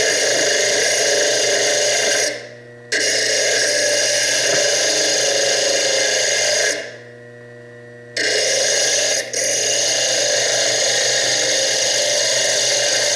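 Foredom bench lathe spinning a small diamond slitting disc that grinds slots into fire agate, pushed hard into the stone. The grinding cuts out twice, about two seconds in and about seven seconds in, leaving only the quieter steady hum of the lathe running free.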